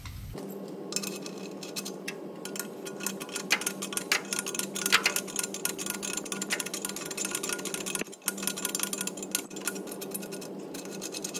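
A ratchet clicking in runs as an M20 thread chaser is wound into the NOx sensor boss on a diesel exhaust pipe and backed off again, cleaning up the threads. A steady low hum runs underneath.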